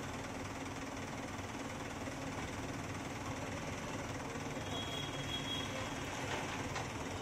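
Diesel engines of a JCB backhoe loader and a tractor running steadily at idle.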